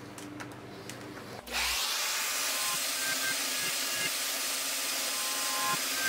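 A handheld vacuum cleaner switches on about one and a half seconds in and runs with a steady hiss, its nozzle held at a hole saw sitting in a desktop to catch the sawdust.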